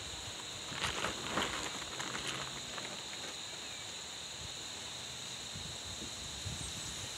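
Faint knocks and scuffs of birch logs being handled and shifted on a stacked log wall, mostly around one to two seconds in, over a steady high-pitched buzz.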